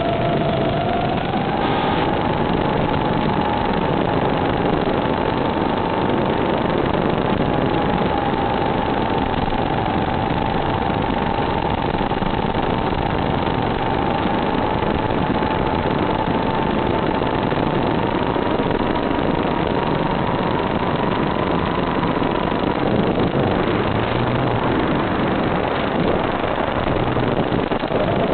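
Sound track of an FPV drone's analog video feed: a steady hiss of static with a thin whine that drifts slightly in pitch and fades out a few seconds before the end.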